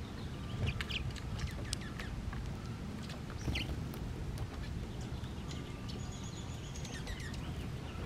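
Small songbirds chirping in many short, high notes, with one longer thin whistle a little before the end, over a steady low rumble.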